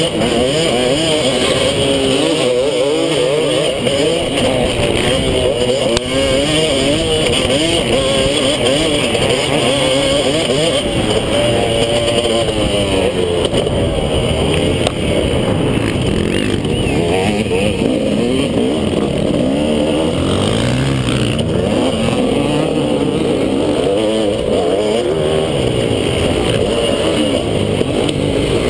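KTM 250 SX two-stroke motocross engine under hard riding, its pitch rising and falling again and again as the throttle is opened, shifted through and rolled off, heard close from the bike-mounted camera.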